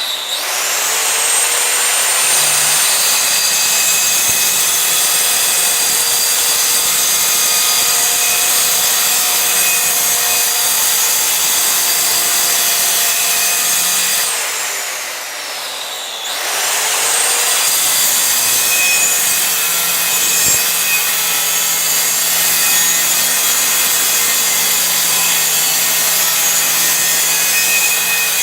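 Handheld electric stone cutter with a disc, running at full speed and cutting stone, with a steady high whine and hiss. About halfway through, the motor slows, its pitch falling, then spins back up to full speed.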